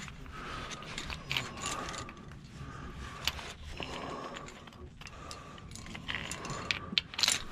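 Metal climbing gear clinking and rattling as a climber handles protection on the harness, trying to find a piece that fits the crack, with scattered sharp clicks.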